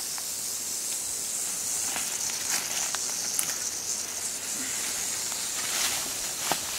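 Timber rattlesnake rattling its tail: a steady, high, hissing buzz that does not let up, the snake's defensive warning. A few faint clicks of brush or the snake tongs sound over it.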